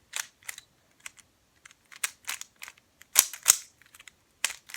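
A new Rubik's Cube being turned fast during a speed solve: quick, irregular plastic clicks and clacks as the layers snap round, loudest a little past three seconds in.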